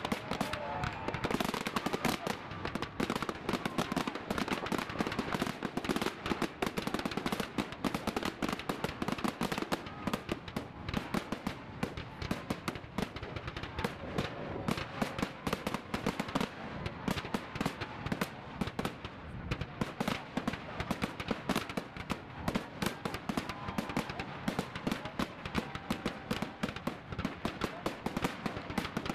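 Aerial fireworks shells bursting in quick succession, a dense, continuous crackle of many small sharp reports.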